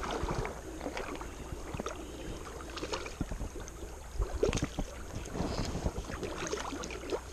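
Wind buffeting the microphone with a steady low rumble, over scattered light clicks and ticks from a spinning reel and rod being handled while a hooked channel catfish is played and tired out.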